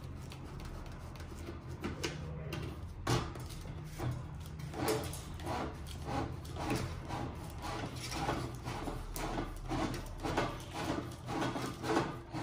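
Wire spool of a Lincoln Electric flux-core wire welder being turned by hand, a single knock about three seconds in and then short rasping strokes about twice a second, over a low steady hum.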